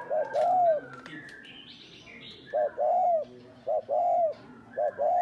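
Spotted dove cooing over and over, each phrase one or two short notes running into a longer arched coo, about four phrases. Fainter, higher chirps from other small birds come in between.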